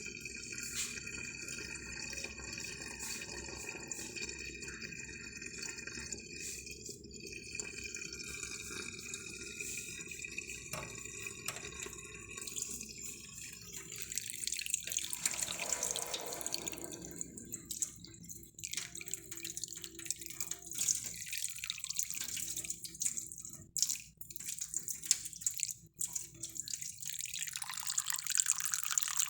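Water running and dripping, like a tap running into a sink, with a faint steady high tone in the first half that stops about halfway through.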